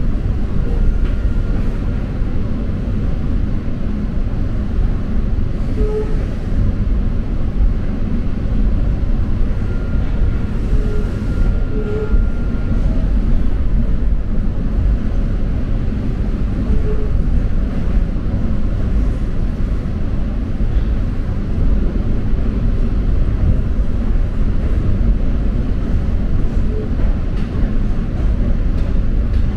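Steady low rumble of a moving passenger train heard from inside the carriage, its wheels running over the rails. A faint thin high tone sounds for about two seconds near the middle.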